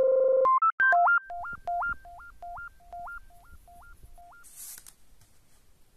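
Short synthesizer jingle: loud buzzy held tones give way to a quickly repeating two-note blip that jumps up in pitch and fades away. A brief hiss follows near the end.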